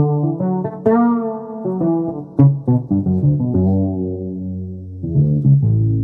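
Korg M1 synthesizer playing a plucked-string patch from an Hcard 101 sound bank: a phrase of quick notes over bass notes, ending on a held low note that slowly fades near the end.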